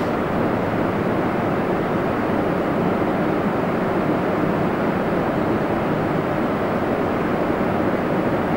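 Steady, unchanging background noise of an underground subway station, with no distinct clicks, announcements or train passes.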